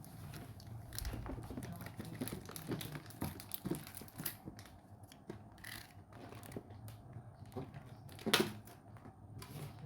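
Packaging of a cordless impact drill being handled and unwrapped: irregular crinkling and rustling with scattered clicks, and a louder crackle a little over eight seconds in.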